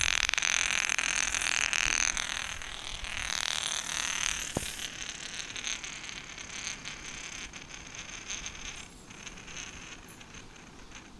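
Wooden pambaram spinning top spinning on its metal tip on floor tiles: a steady whirring scrape that gradually gets quieter.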